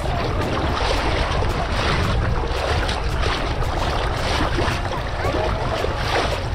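Small ripples of calm sea water lapping and sloshing against a camera held at the surface, with an irregular crackle of splashes over a steady low rumble of wind on the microphone.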